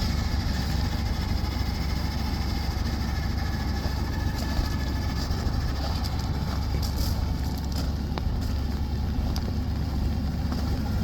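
The dump truck's Chevrolet small-block 350 V8 idling steadily, with a faint patter of rain.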